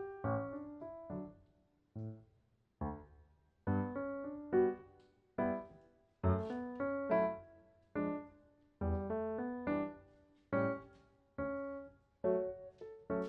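Background music on piano: soft notes and chords struck in short phrases, each left to fade.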